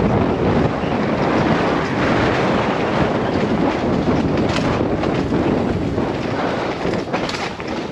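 Wind buffeting the microphone over the rumble of knobby tyres on a dirt trail strewn with dry leaves as an enduro mountain bike is ridden fast downhill. The bike rattles over the rough ground, with a sharp knock about halfway through and another near the end.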